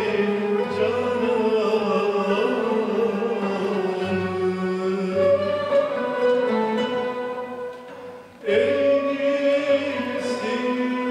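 Turkish classical song in makam hicaz: voices singing to a traditional ensemble of oud, kanun and violins. About eight seconds in the music thins to a brief lull, then comes back in fuller.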